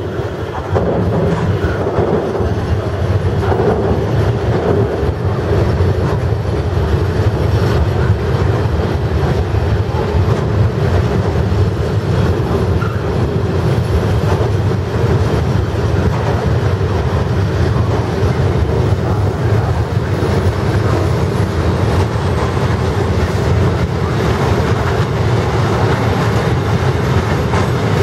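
Long freight train of DB Cargo covered wagons rolling steadily past close by: a continuous loud rumble of steel wheels on the rails.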